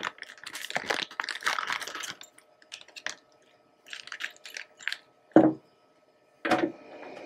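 A small plastic bag crinkling as parts are unwrapped, thinning into scattered light clicks, then two knocks about a second apart as the parts are set down on a rack-mount server case.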